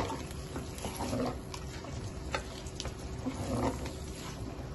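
Wooden spoon stirring and scraping a thick onion, garlic and tomato-paste masala frying in ghee in a stainless steel pot, with light clicks of the spoon against the metal.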